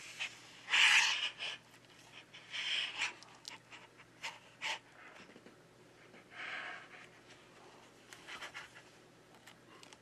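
A plastic opening pick scraping through the display adhesive of an iPad Air 4, in several short scraping strokes with scattered light clicks of plastic on glass and frame, as the screen is worked loose and lifted free.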